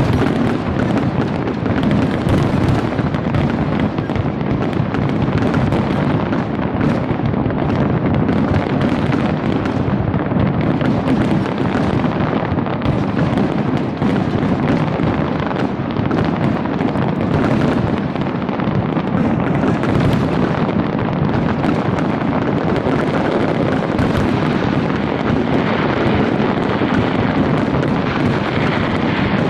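Large fireworks display at full intensity: a dense, continuous barrage of shells bursting, the bangs so close together that they merge into a steady rumble.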